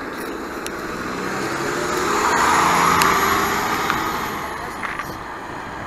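2018 Nova Bus LFS diesel transit bus pulling away from the stop. Its engine noise swells to a peak about three seconds in and then fades as it drives off, with a thin high whine over it.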